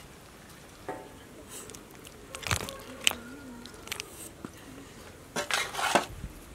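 Thick crab gravy ladled onto a heap of crabs on a banana leaf: irregular wet plops and squelches with the knock of the ladle, the loudest just before the end.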